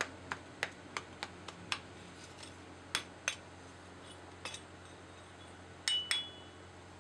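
Small hammer tapping on a freshly cast aluminium fighter-jet model: a run of light metallic clinks, then two harder strikes near the end that ring briefly.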